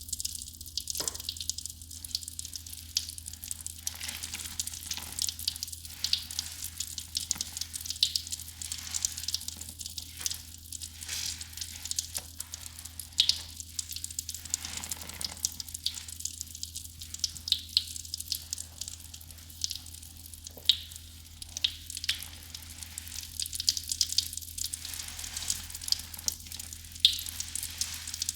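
Foamy soap mixture fizzing and crackling, a dense run of tiny pops with a few sharper ones.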